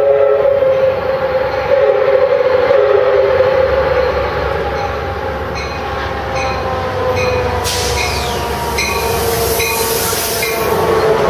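Amtrak Pacific Surfliner train led by an F59PHI diesel locomotive arriving at a station. Its horn sounds several blasts over the first few seconds. The diesel rumble then builds as the locomotive draws up, and its bell rings about twice a second, with a loud hiss in the later part.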